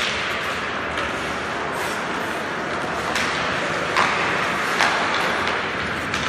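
Ice hockey play in an indoor rink: a steady hiss of skates on ice and hall noise, broken by several sharp clacks of sticks and puck, the loudest about four and five seconds in.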